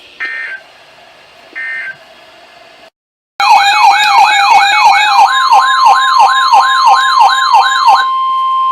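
Two short warbling data bursts, the Emergency Alert System end-of-message code on NOAA Weather Radio. After a brief silence a loud electronic siren begins yelping, about three sweeps a second. The steady 1050 Hz NOAA warning alarm tone comes in under it and holds on alone after the siren stops near the end.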